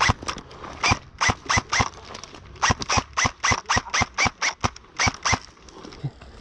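Airsoft gun firing single shots, each a sharp crack with a short ringing tone. A few spaced shots come first, then a quick string of about a dozen at three to four a second that stops about a second before the end.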